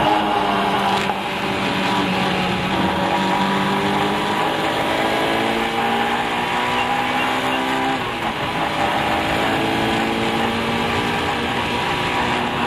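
A track car's engine heard from inside the car, pulling hard on a circuit. Its pitch jumps up at the start, then climbs slowly, eases briefly about eight seconds in and climbs again, over steady road and wind noise.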